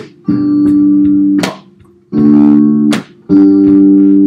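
Electric guitar played through an amplifier, strumming chords that are each held for about a second with short gaps between them, keeping time for a rhythm exercise. Sharp hits about every second and a half mark the beat.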